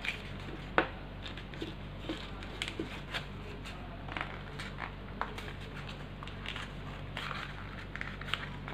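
A folded paper boat being pulled open and pressed into shape by hand: the paper crinkles and crackles in irregular small clicks, with one sharper snap about a second in. A steady low hum runs underneath.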